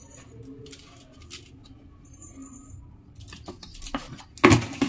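Uncooked rice poured from a plastic jar into a clay karwa pot and pressed down by hand: faint rustling and small ticks of grains, with a brief louder noise near the end.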